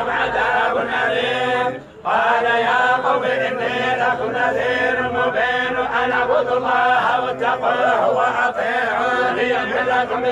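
Men's voices chanting a recitation of the Quran, continuous and melodic, with one brief pause for breath about two seconds in.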